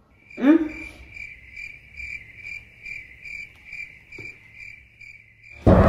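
Toy ray gun's electronic sound effect: a quick falling zap about half a second in, then a high beeping tone pulsing a bit over twice a second. Loud music cuts in just before the end.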